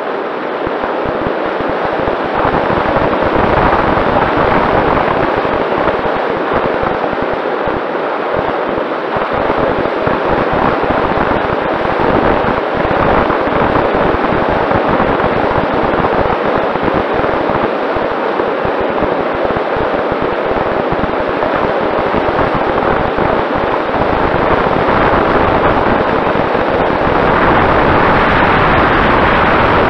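Airflow rushing and buffeting over the onboard camera's microphone of a Mini Talon plane in flight, crackling in the low end, with the faint steady whine of its Sunnysky 2212 brushless pusher motor and propeller underneath.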